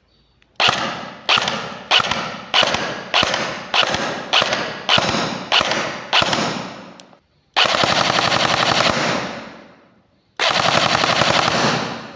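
Airsoft AEG, a Jingji Maxim Defense PDX with an APS Edge SDU 2.0 gearbox, firing about ten single shots roughly half a second apart, then two bursts of rapid fire lasting about a second and a half each.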